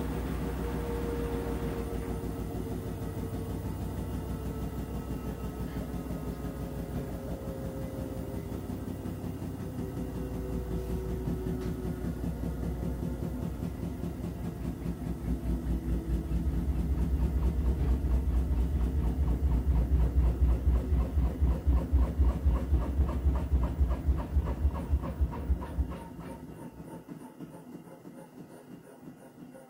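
Whirlpool FreshCare+ front-loading washing machine with its drum turning: the motor whine slowly falls in pitch over a steady rhythmic thumping. The thumping grows louder, then drops off abruptly about 26 seconds in, leaving only a faint sound.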